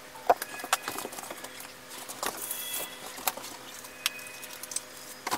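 Scattered light clicks and knocks of kitchen things being handled on a counter, with a few brief high ringing tones.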